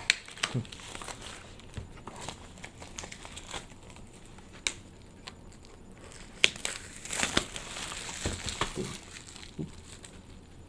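Plastic shrink wrap crinkling and tearing as a sealed Elite Trainer Box is unwrapped, with a few sharp snaps between.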